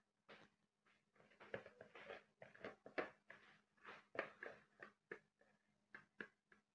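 Faint, irregular clicks and scrapes, a few a second and busiest in the middle, over a steady low hum.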